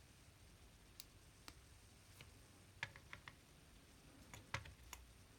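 Near silence with a few faint, sharp clicks of small parts being handled: single clicks in the first two seconds, a quick cluster about three seconds in, and another few near the end.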